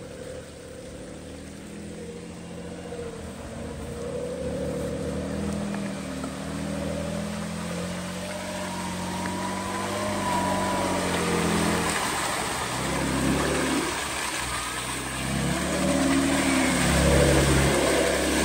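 Off-road 4x4's engine running and revving in a deep mud hole, growing steadily louder.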